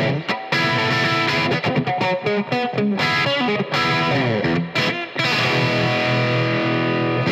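Squier Telecaster Cabronita electric guitar played with overdrive: quick lead runs with bent and sliding notes, then a held chord left ringing for the last two seconds or so.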